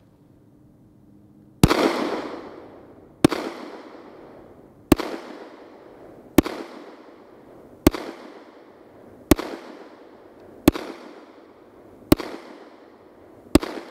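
Glock 43X 9mm pistol fired nine times at a slow, even pace, about one shot every second and a half. Each sharp report trails off in a short echo.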